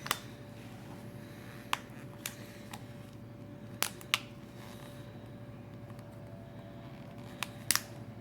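Scattered sharp clicks and taps of small tools and phone parts being handled on a workbench, about seven in all, over a steady low hum.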